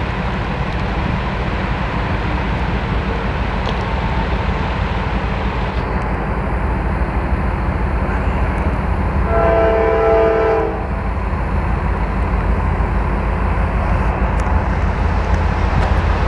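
Norfolk Southern diesel freight locomotive sounding its horn once, a chord of several tones held about a second and a half, around the middle. A steady low rumble runs underneath.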